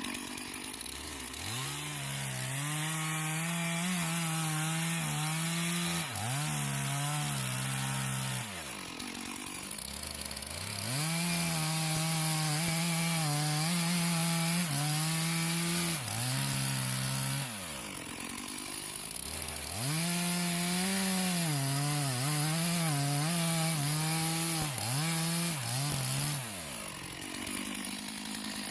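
Two-stroke chainsaw cutting a felled tree into firewood lengths. The engine revs up and holds at full throttle through three long cuts, dropping back to idle between them.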